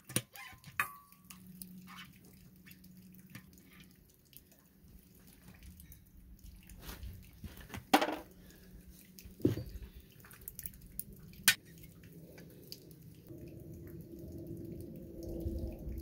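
Hand wrenches working a steel CTIS air fitting on a military truck wheel loose: scattered light metallic clicks and taps, with three sharper clinks about eight, nine and a half and eleven and a half seconds in.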